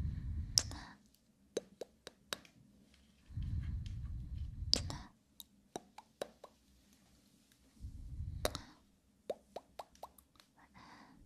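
Fingers and palm rubbing and pressing right against a phone's camera and microphone, giving three muffled rumbles of about a second each. Sharp pops and clicks are scattered between them in an ASMR plucking routine.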